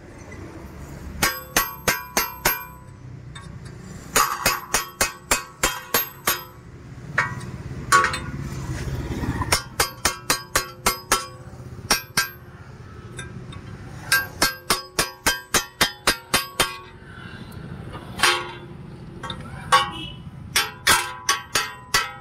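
Hammer blows on metal in quick runs of five to nine strikes with pauses between, each strike ringing briefly: the seized front hub bearing of a Skoda being knocked out of its steering knuckle. A swell of low rumbling noise comes in about eight seconds in.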